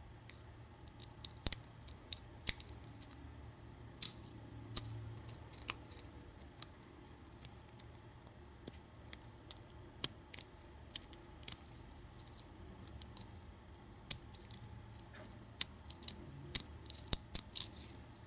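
Lock pick and tension wrench working the pins of a pin-tumbler lock cylinder held in the hand: irregular small metallic clicks and scrapes as pins are lifted and set, coming faster near the end.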